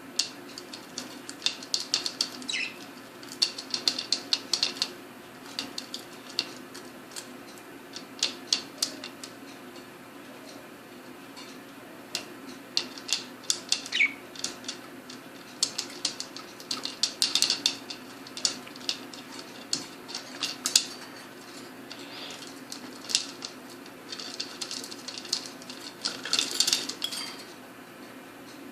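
Budgerigars chattering in quick clicky bursts, with a few short falling calls, over a steady low hum.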